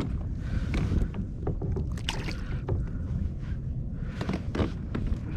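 Sounds of a fishing kayak on the water: a steady low rumble with scattered small knocks and splashes throughout.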